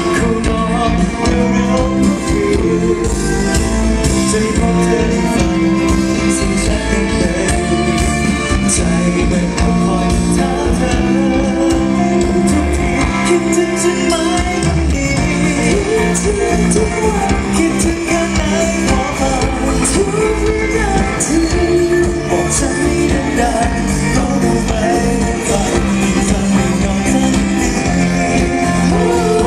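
Loud amplified pop music over a PA: a singer with band backing, echoing in a large hall.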